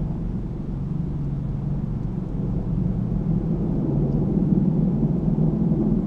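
An unidentified heavy, low droning rumble, steady and swelling slightly about two-thirds of the way through. It sounds like a heavy helicopter trying to take off.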